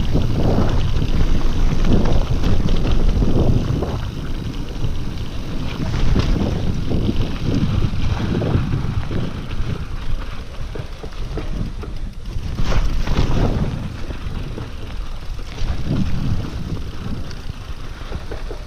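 Wind buffeting the GoPro Hero5's microphone while riding a Scott Genius LT 710 Plus mountain bike: a loud, uneven rumble that rises and falls. The bike and its tyres rattle over the trail now and then, most clearly about six and thirteen seconds in.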